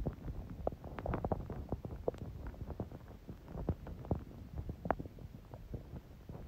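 Human stomach gurgling: a continuous, irregular run of small gurgles and pops, with a few sharper pops among them.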